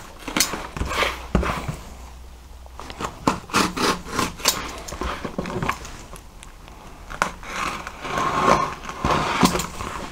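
Yellow snap-off utility knife slicing the packing tape on a cardboard box, with irregular scrapes, rubs and knocks as the box is turned and handled.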